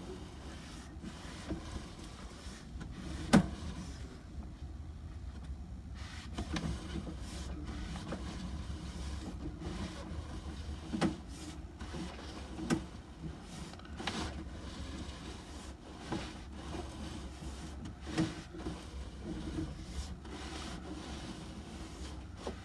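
Sewer inspection camera's push cable being pulled back out of the line: rubbing and scraping with scattered knocks and clicks, over a steady low hum.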